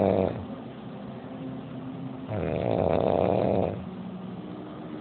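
A woman snoring loudly. The end of one snore comes right at the start, and one full snore about a second and a half long follows in the middle, with quieter breathing between them.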